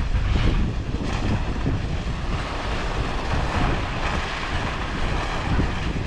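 Car driving slowly: steady low road and engine rumble, with wind noise on the microphone.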